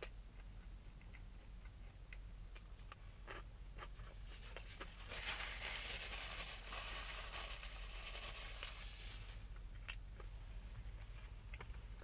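A person chewing a crispy fried chicken sandwich close to the microphone, with small wet clicks. About five seconds in there is a louder stretch of dense crunching that lasts a few seconds.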